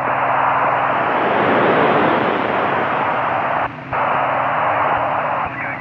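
Loud FM radio hiss from a receiver tuned to the 145 MHz downlink of an amateur radio satellite, with no voice on the channel. It dips briefly about two-thirds of the way through.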